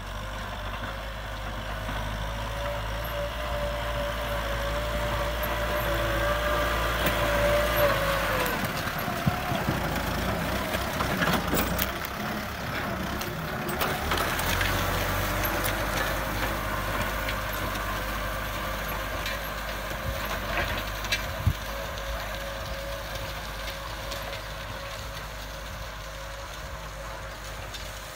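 Kubota M6040 tractor's diesel engine running steadily under load while pulling a disc plough through dry soil. Its note wavers and dips about a third of the way in, and a few sharp knocks come through around the middle.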